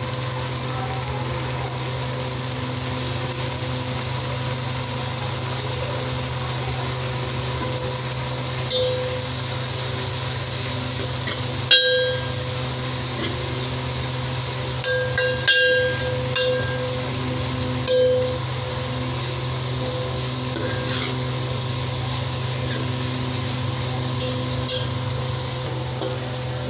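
Shredded cabbage and capsicum frying in oil in an aluminium kadhai, a steady sizzle, with a metal spoon stirring and scraping. The spoon strikes the pan with ringing clinks about twelve seconds in and again around sixteen seconds.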